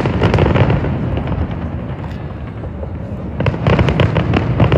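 Fireworks going off in a display: rapid clusters of sharp bangs and crackles over a steady low rumble. There is one dense flurry at the start and another from about three and a half seconds in.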